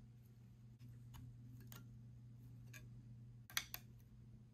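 Light clicks and taps of hard plastic model airliner parts being handled, with a louder pair of clicks about three and a half seconds in.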